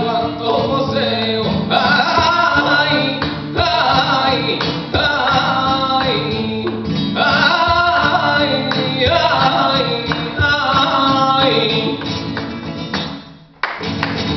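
Flamenco song (tientos-tangos): a male singer's cante over flamenco guitar, with hand-clapping (palmas). Near the end the music drops away, and one last loud chord closes the piece.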